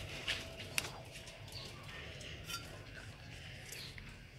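Faint handling noise as a plastic bottle of white school glue is squeezed over a plastic tub: scattered small clicks and ticks, the sharpest about a second in.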